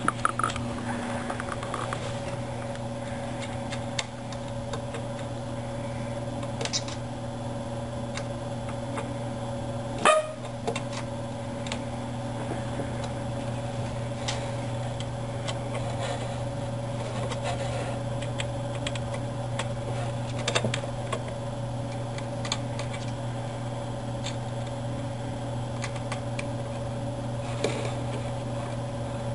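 Steady low hum made of a few fixed tones, with scattered small clicks and taps as parts of a 3D printer's Z stage are handled, and one sharper click about ten seconds in.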